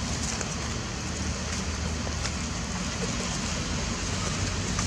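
Steady outdoor background noise: a low rumble with a hiss on top and a few faint clicks.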